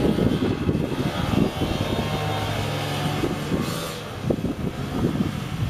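Wind gusting on the microphone in uneven low rumbles, with a steady engine hum coming through for about two seconds midway.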